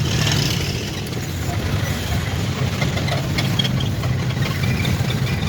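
A vehicle's engine running steadily with a low, even rumble.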